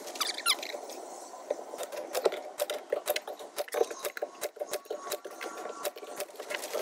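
A pneumatic framing nailer driving nails through an OSB gusset into 2x6 truss lumber, heard as a rapid, irregular clatter of sharp clacks because the time-lapse audio is sped up.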